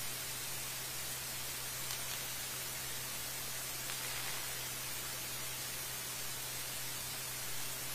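Steady hiss like static, with a constant low hum underneath. It stays even throughout, with no blast or impact heard.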